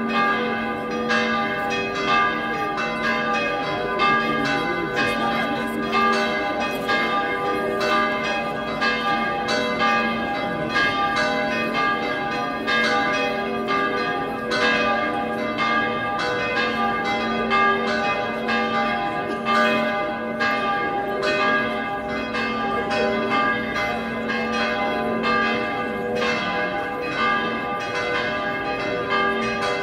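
Church bells ringing in the bell tower, several bells struck over and over, a couple of strokes a second, their tones overlapping and hanging on.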